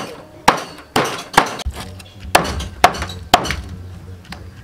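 Meat cleaver chopping chicken wings on a thick round wooden chopping board: sharp chops about every half second, with a short pause midway.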